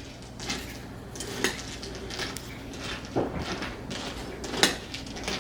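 Kitchen clatter: dishes and cutlery handled and set down, with a few sharp clinks and knocks over a low steady hum.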